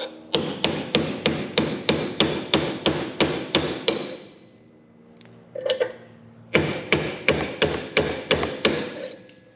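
Hammer striking metal in two runs of quick, evenly paced blows, about three a second, each with a brief ring. The runs are separated by a pause of about two seconds with one lighter knock.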